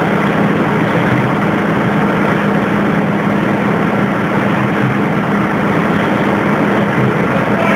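DC electric arc furnace running: a steady hum with a continuous rushing noise over it.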